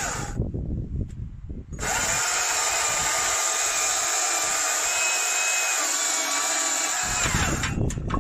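Stihl MSA 200 C battery chainsaw's electric motor whining as the chain runs through a log: it stops briefly about half a second in, starts again just before two seconds and cuts steadily for about six seconds, then stops near the end, leaving a low rumble.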